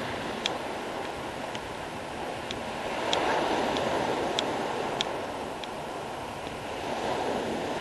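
Surf breaking and washing up a pebble beach, a steady rush of water that swells about three seconds in, with scattered short sharp clicks.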